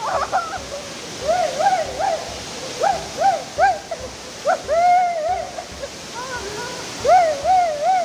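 Steady rush of a waterfall under a string of short pitched notes that rise and fall, repeated in phrases about every half second.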